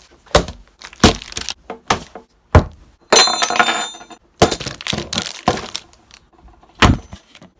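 Food being prepared by hand: a string of sharp knocks and clinks of utensils and dishes, with a rattling clatter about three seconds in.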